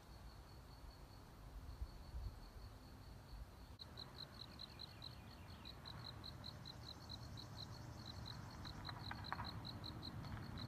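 A cricket chirping in a steady high pulse, about four to five chirps a second, which grows clearer about four seconds in. A low rumble runs underneath.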